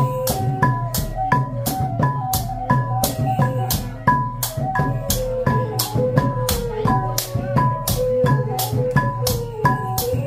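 Khmer chhayam dance music: drums with regular cymbal clashes, about two to three a second, under a wavering melody line.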